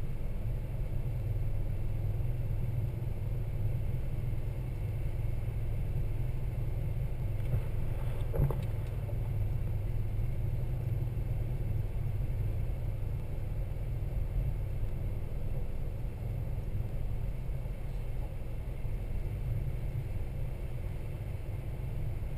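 Toyota Land Cruiser 80 series driving, a steady low rumble of engine and running gear, with a single knock about eight seconds in.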